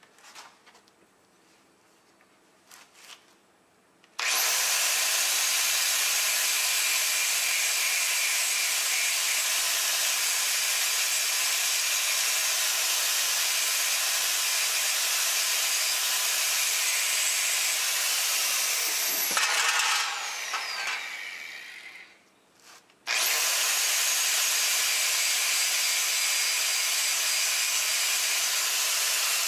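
Electric angle grinder starting up about four seconds in and running against steel with a loud, steady high-pitched hiss. It winds down with a falling whine about two-thirds of the way through, then spins up again for a second run.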